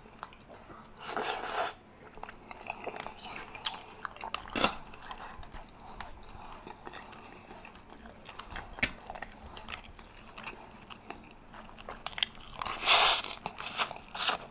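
Close-miked eating: chewing rotisserie chicken with scattered wet mouth clicks. Near the end come a louder run of slurping as spaghetti strands are sucked in.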